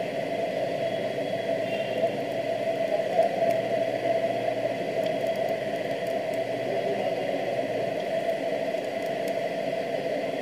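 Steady hiss and hum of background noise, with a few faint ticks of paper as a small handmade paper flip book is thumbed through.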